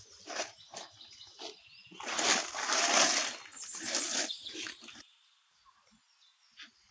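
Long-tailed macaque giving harsh, noisy screeching calls for about three seconds, starting about two seconds in and breaking off sharply at about five seconds. Before the calls there are a few short scuffs and taps.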